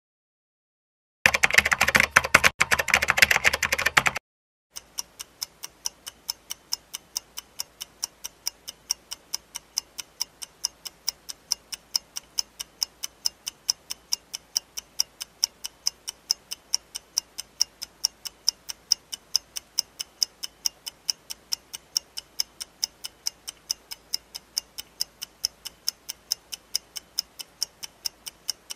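A ticking-clock sound effect, about two ticks a second, steady from about five seconds in, timing a read-aloud prompt. Before it, a loud burst of rapid clicks lasting about three seconds.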